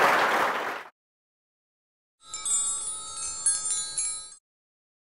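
Audience applause, cut off abruptly about a second in. After a short silence comes a two-second outro jingle of shimmering, bell-like chime tones.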